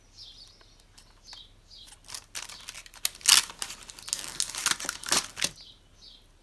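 Clear plastic stamp packaging crinkling and crackling as it is handled, in a burst starting about two seconds in and lasting about three seconds. A few faint bird chirps sound in the background.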